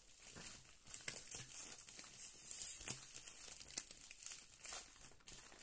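Thin plastic wrapping around a rolled diamond-painting canvas crinkling as hands press and handle it, a run of irregular crackles.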